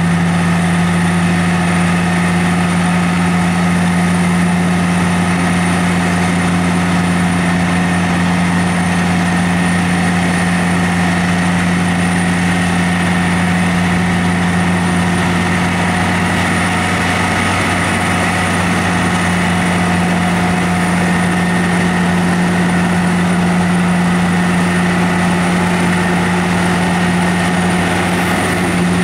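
Heavy diesel engines of a continuous microsurfacing paver and its nurse truck running steadily under load, a constant low drone with a strong steady hum that does not change in pitch or level.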